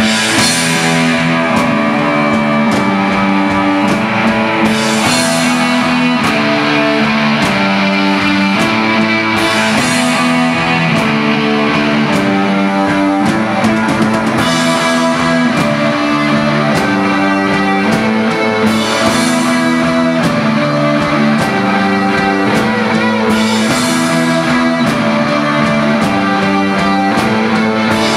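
Rock band playing live: electric guitars, electric bass and drum kit in a steady, loud passage, with a cymbal crash about every four to five seconds.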